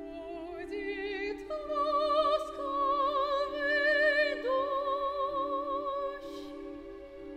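Classical soprano singing a slow phrase with wide vibrato, climbing in pitch over the first couple of seconds and holding long notes, over a steady held chord in the orchestral accompaniment.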